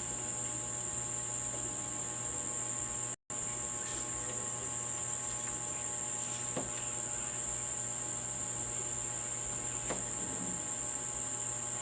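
A steady high-pitched background trill over a low hum, with a few faint clicks and a brief total dropout about three seconds in.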